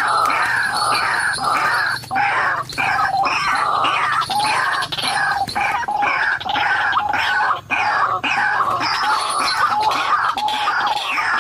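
White-breasted waterhen calling: a loud, unbroken run of repeated harsh notes, about two a second, the call of a decoy or lured waterhen.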